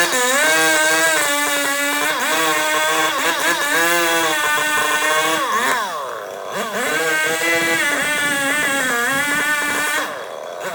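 Two-stroke chainsaw running at high revs, its pitch rising and falling as it works through wood. The pitch sags deeply about six seconds in, then climbs back.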